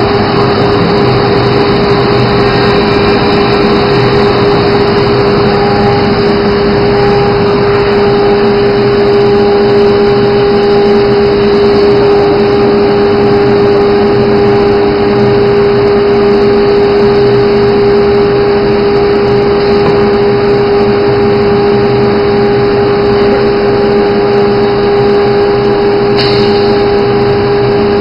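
CNC router with automatic tool changer running: a loud, even machine noise with a strong steady tone from the spindle.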